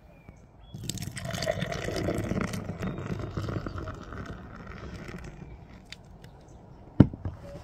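Hookah water bubbling as someone draws on it for about five seconds, loudest around two seconds in. A single sharp click near the end.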